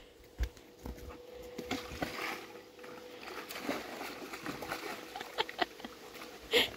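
A large dog making breathing and snuffling sounds, with a few light clicks and a short, louder noise near the end.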